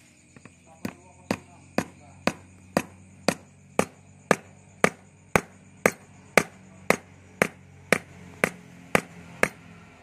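Hammer tapping a steel steering-shaft cross joint (universal joint): about eighteen sharp metallic blows at a steady two a second, each with a short ring.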